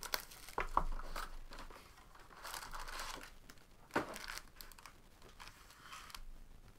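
Plastic wrap and foil card packs crinkling and rustling as a hobby box of trading cards is opened and its stack of foil packs pulled out and laid on a table, with a sharp tap about four seconds in.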